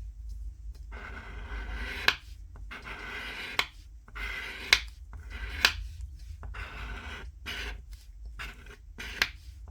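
Scratch-off lottery ticket being scratched: repeated rasping strokes across the coating, starting about a second in, with several sharp clicks among them.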